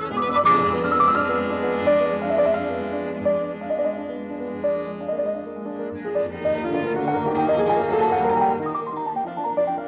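Background instrumental music with a melody moving from note to note.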